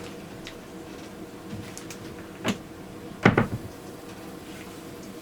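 Hard objects knocking in a kitchen: one sharp knock about two and a half seconds in, then a quick cluster of three or four knocks, over a steady faint hum.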